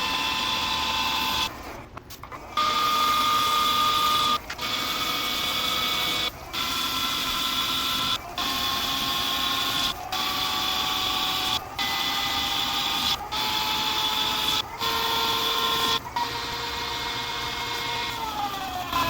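Metal lathe running: a steady machine whine that breaks off briefly about every one and a half seconds and comes back at a slightly different pitch, falling in pitch near the end.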